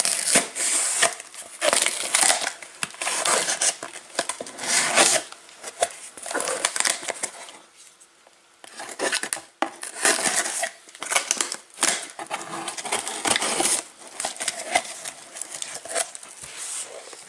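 A folding knife slitting the packing tape along a cardboard box, with the scraping and crackle of the tape and cardboard in irregular bursts. After a short lull about halfway, the flaps are pulled open and the cardboard rustles.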